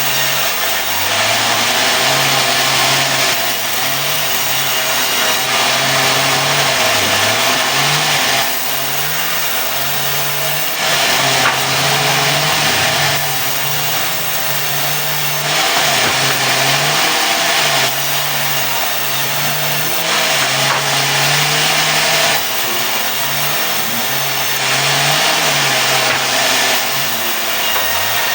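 Sawmill running and sawing mahogany into boards: a steady engine note that dips briefly every few seconds as the saw takes load, over a continuous hiss of the cut.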